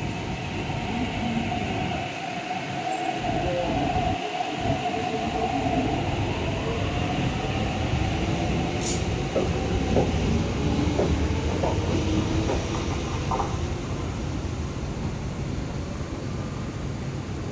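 An MTR East Rail Line electric train runs past along the platform with a steady motor whine over the rumble of its wheels. A run of short clicks comes through the middle.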